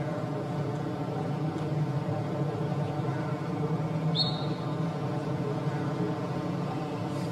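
Steady outdoor background noise with a low hum, and one brief high chirp about four seconds in.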